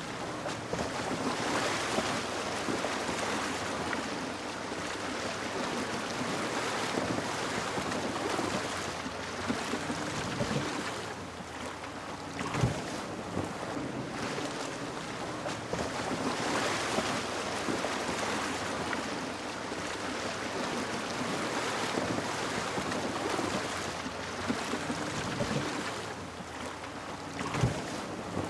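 A shallow stream rushing and splashing around a Land Rover Defender V8 wading through it, with the supercharged 5.0-litre V8 running steadily at low revs beneath the water noise. A couple of sharp knocks stand out, one about halfway through and one near the end.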